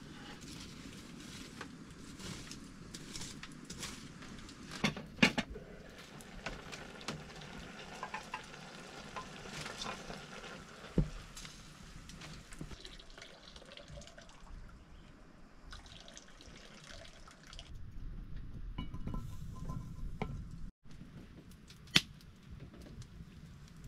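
Water dripping and trickling, with scattered clinks and knocks of objects being handled; sharp knocks about five seconds in, around eleven seconds and near the end.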